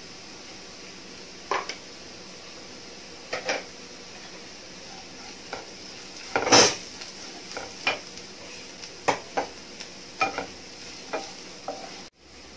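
Wooden spatula stirring sliced onions and spice powders in a non-stick frying pan, with irregular scraping and knocking strokes against the pan over a steady sizzle. The loudest stroke comes a little past the middle.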